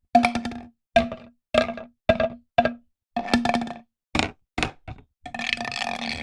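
Squirt bottle squirting in a quick series of short spurts, about nine, the bottle giving the same hollow tone on each, then one longer squirt near the end.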